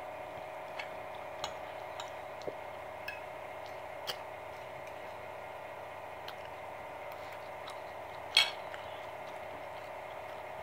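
Eating at a plate: a scattering of small clicks from a metal fork on the plate and in the mouth, with one sharper clink about eight seconds in, over a steady background hum.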